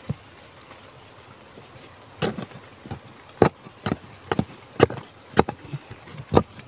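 A hand digging tool striking into packed soil and roots, in repeated sharp strokes about two a second that start about two seconds in.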